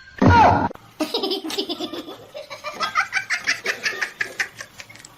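Laughter: a person laughing hard in quick repeated bursts for about four seconds, after a short loud cry that falls in pitch.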